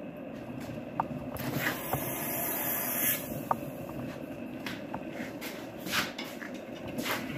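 Steady rushing noise with scattered light clinks and knocks of steel and tools being handled at a blacksmith's forge, coming more often near the end; no hammer blows.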